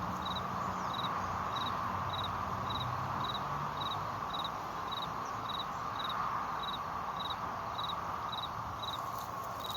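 A cricket chirping steadily, about two short chirps a second, over a steady background hiss.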